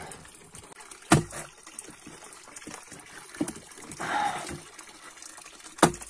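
Shallow stream water trickling along a small board-lined channel. Two sharp knocks stand out, about a second in and again near the end, with a short rustle around four seconds in.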